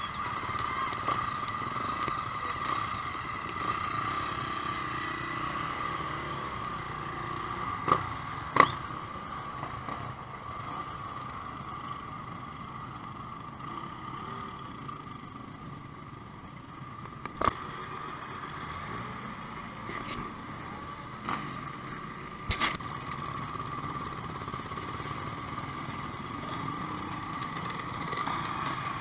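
Engines of a pickup truck, a truck towing a trailer and supermoto motorcycles moving slowly past at low revs, over a steady high whine, with a few sharp clicks.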